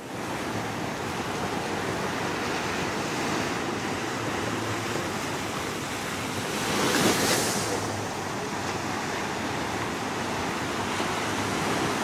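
Ocean surf washing in steadily, with one louder wave breaking about seven seconds in.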